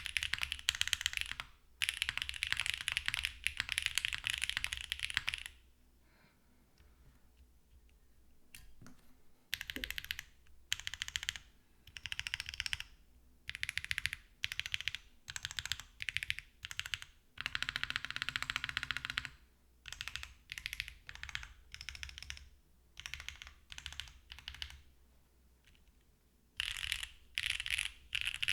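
Typing on a wilba tech Salvation mechanical keyboard with stock Kailh BCP switches in an aluminium plate on a leaf-spring tray mount, under GMK Dracula keycaps. It comes in fast runs of keystrokes with short pauses between them, and goes quieter from about six to nine seconds in. The sound is clacky, which the owner likens to a long-pole Cherry switch.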